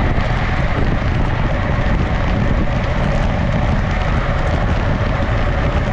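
Wind buffeting the microphone of an action camera on a road bike racing at about 60 km/h: a loud, steady rush with a fluttering low rumble.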